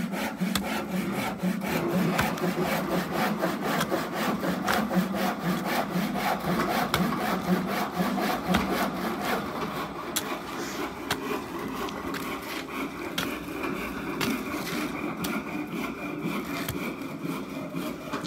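Hand-tool work on a building site: continuous rasping and scraping, with many sharp knocks and taps throughout.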